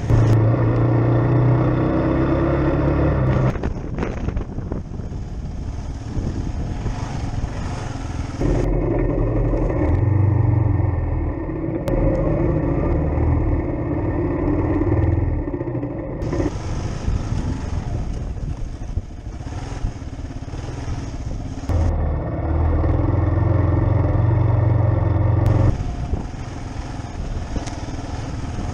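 Kawasaki KLR 650 single-cylinder four-stroke engine running on a dirt trail, heard from an onboard camera. It switches abruptly several times between strong, louder stretches of pulling and quieter, rougher stretches.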